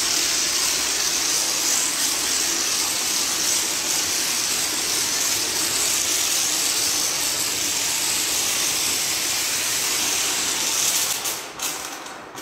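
High-pressure foam lance at a self-service car wash spraying foam onto a car: a steady hiss of spray that cuts off near the end.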